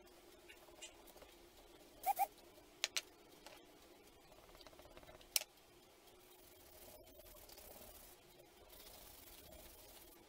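Faint rubbing of fingers and an oil pastel stick on drawing paper, with a few sharp clicks and taps, the loudest a quick pair about two seconds in and a single one about five seconds in.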